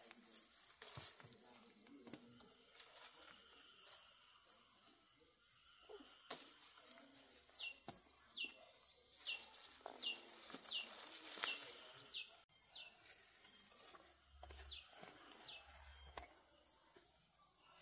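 Faint countryside ambience: a steady high insect drone, with a bird repeating short falling chirps every half second to a second through the middle stretch. There are also a few soft clicks and rustles.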